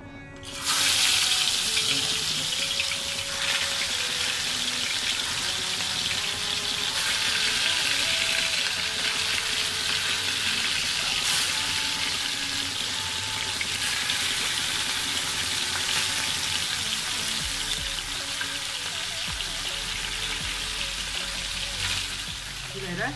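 Chunks of raw beef frying in hot oil in a pan. The sizzle starts suddenly, less than a second in, as the meat meets the oil, then carries on as a steady, loud sizzle.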